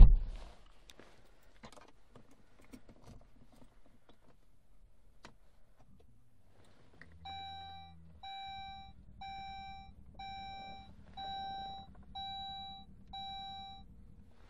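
A sharp thump at the start, then the Saab 9-5's warning chime beeping seven times, about once a second, inside the cabin. A low steady hum comes in under the chimes.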